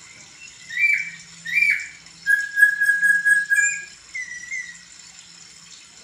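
Caged poksay (laughingthrush) singing loud clear whistles. Two short notes come in the first two seconds, then one long steady whistle of about a second and a half, then a few softer short notes.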